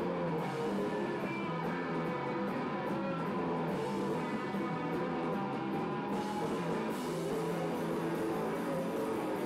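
Rock band playing live: electric guitar over a drum kit with cymbals, continuous and steady.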